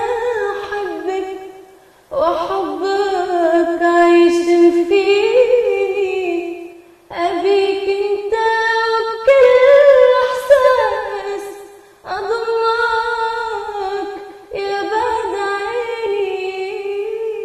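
A woman singing a slow Arabic song unaccompanied, in long phrases of held, wavering notes with short pauses for breath between them.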